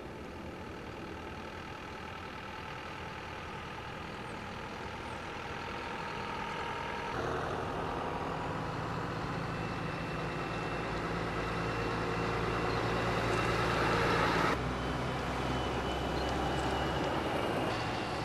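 Diesel trucks driving by in turn: a Mercedes-Benz light box truck, then a heavy eight-wheel tipper, then an articulated truck, engines running steadily. The engine sound builds gradually and changes abruptly about seven and fourteen and a half seconds in, as one truck gives way to the next.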